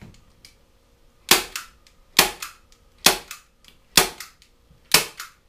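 Hand staple gun firing T50 staples through a deer hide: five sharp snaps a little under a second apart, each followed by a softer click.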